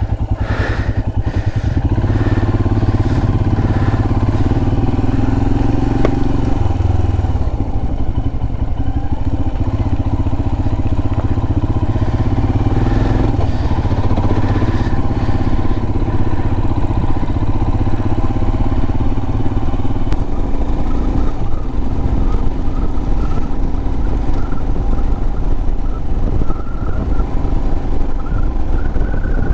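Royal Enfield Himalayan motorcycle's single-cylinder engine running steadily while under way, a continuous low rumble with no pauses.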